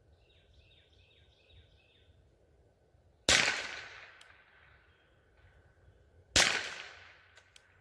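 Two shots from a Rossi RS22 semi-automatic .22 LR rifle, about three seconds apart, each trailing off in a brief echo.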